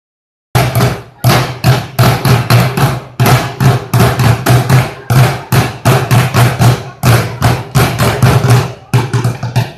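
A group of drummers beating barrels with drumsticks, playing a fast, driving rhythm of loud, deep strikes that starts about half a second in.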